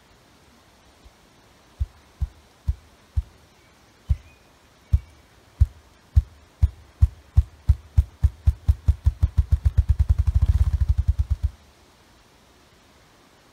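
Ruffed grouse drumming: the male's wingbeats make deep, low thumps that start slow and spaced, then quicken steadily into a rapid whir and stop suddenly. This is the male's spring territorial and courtship display.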